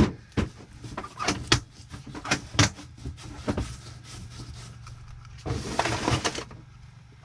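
Knife clicking and knocking against a plastic cutting board and through the bones while a walleye is filleted, a quick series of sharp taps over the first few seconds. A short rush of noise about five and a half seconds in, over a steady low hum.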